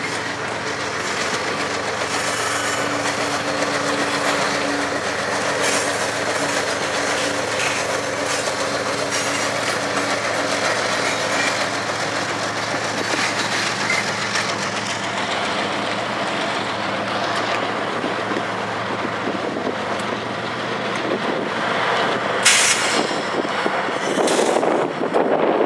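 A GE ES44AC diesel locomotive runs as the rear distributed-power unit of a departing grain train, rolling past with a steady engine hum and the rumble of its wheels on the rails. A brief hiss comes near the end.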